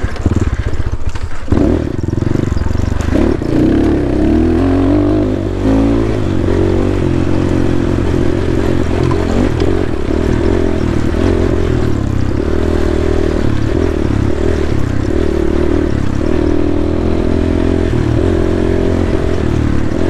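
GPX Moto FSE 250 dirt bike's 250cc single-cylinder four-stroke engine running under load, revs rising and falling as the throttle is worked. There is a sharp knock about a second and a half in.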